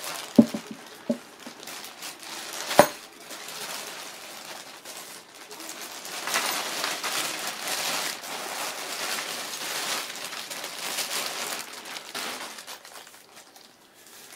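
Clear plastic packaging bag crinkling and rustling as it is handled, loudest from about six to twelve seconds in. A few sharp knocks come in the first three seconds.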